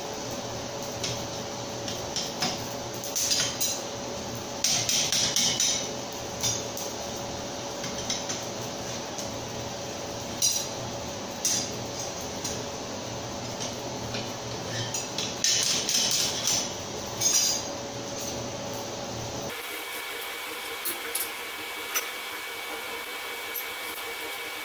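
A hot steel bar being bent into a scroll at a stump-mounted bending jig: irregular metallic clanks and clinks as the bar and bending tools knock against the steel, in clusters, over a steady hum. Near the end the hum's low part drops away, leaving a thin high whine.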